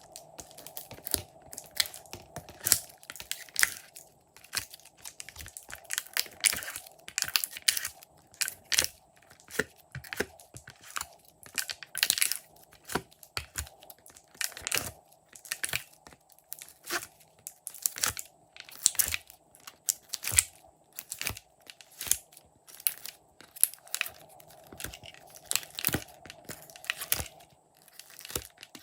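Glossy slime being squeezed and stretched by hand, giving clusters of sharp clicking and crackling pops.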